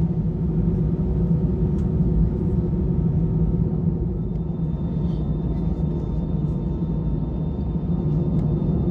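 Steady low rumble inside the cabin of an Airbus A320 airliner as it taxis onto the runway.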